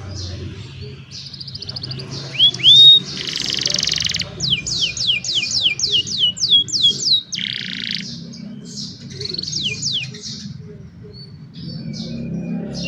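Young domestic canary singing a varied song: quick trills, loud rising whistles, a harsh buzzing note and a run of quick downward-sweeping notes, with a short lull near the end.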